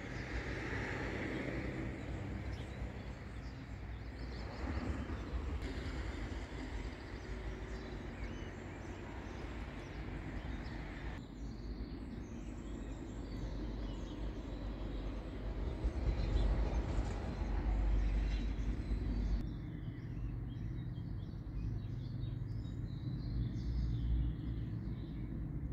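Outdoor ambience: a steady low rumble with faint birdsong, changing abruptly twice as the background shifts.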